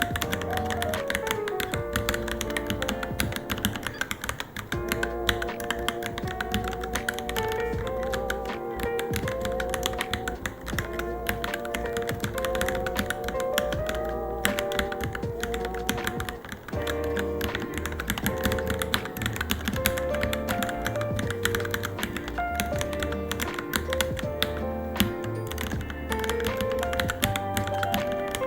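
Continuous fast typing on a Varmilo Minilo mechanical keyboard: a dense, irregular patter of key clicks over background music with a melody.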